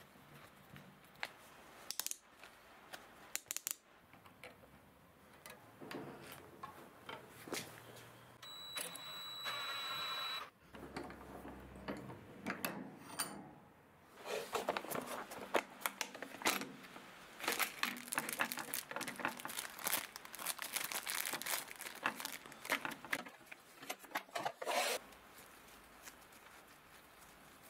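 Cordless drill twisting steel wire into a new stove wick. The drill whirs for about two seconds, then there is a long run of rapid metallic clicking and rattling from the wire, with handling noises around it.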